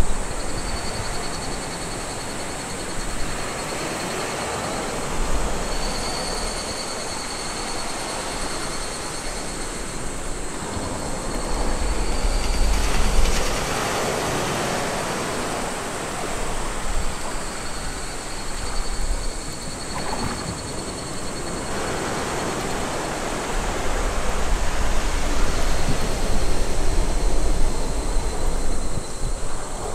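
Wind buffeting the microphone in gusts over a steady rushing noise, with a thin high whine that comes and goes.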